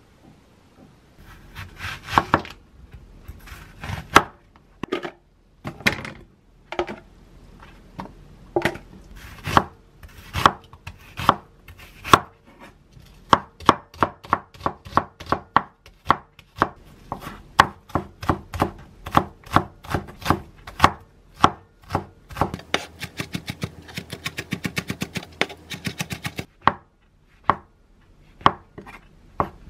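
Chef's knife mincing onion and then shiitake mushrooms on a wooden cutting board. The strikes are scattered at first, then settle into a steady run of several a second, with a burst of very rapid mincing strokes near the end before slowing to single cuts.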